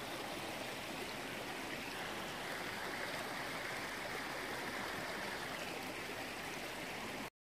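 Small forest brook running steadily over stones and little cascades; the sound cuts off suddenly near the end.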